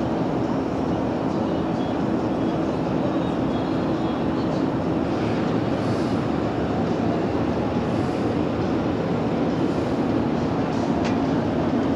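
Steady rumbling noise with a constant low hum that does not let up, with a few faint ticks.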